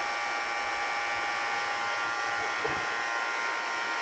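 Refrigeration vacuum pump running steadily, evacuating an air conditioner's refrigerant circuit: an even motor drone with a steady high whine.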